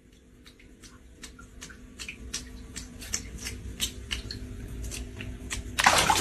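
A run of light, irregular clicks, about three or four a second, growing louder, with a louder rustling burst near the end.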